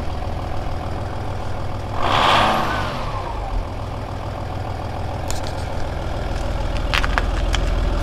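Volkswagen Passat 2.5 V6 TDI turbodiesel idling steadily. About two seconds in, a brief louder rush of noise with a falling tone passes over it, and a few sharp clicks follow near the end.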